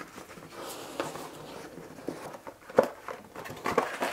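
Hands handling a cardboard product box and its inner cardboard packaging: soft rustling and scraping with a few light taps, and one sharper knock a little under three seconds in.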